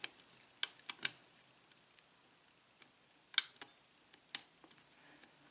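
Lock pick clicking and tapping against the pins inside a five-pin cylinder lock during single-pin picking. Scattered sharp clicks, a few close together in the first second and more around three and a half and four and a half seconds in.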